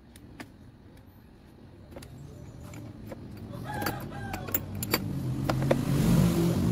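Scattered small metal clicks and taps as hands work at a motorcycle battery's hold-down bracket and terminals. A rooster crows in the background about four seconds in, and a low rumble swells toward the end.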